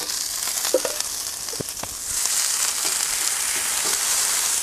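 Baby octopus sizzling in olive oil on a hot barbecue plate. A steady frying hiss starts suddenly as the octopus goes onto the plate and grows louder about two seconds in, with a few faint clicks in the first two seconds.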